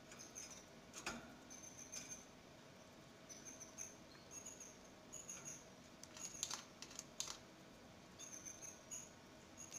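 Canary nestlings about eleven days old giving faint, thin, high-pitched peeps in short irregular clusters, with a few soft clicks among them.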